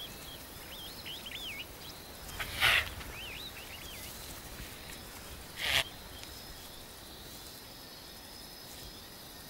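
African bush ambience: small birds chirping in repeated quick wavering calls over a faint steady high insect drone. Twice, about three seconds apart, a short loud hiss cuts through.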